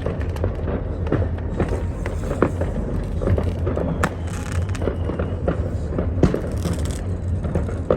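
Scattered pops and crackles of fireworks and firecrackers going off, over a steady low rumble.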